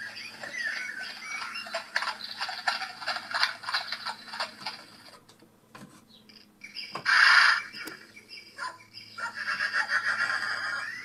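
Farmyard animal sound effects played from a model sound chip: a run of rapid clicking and scratchy animal noises, a short loud rushing burst about seven seconds in, then a buzzy chattering stretch near the end.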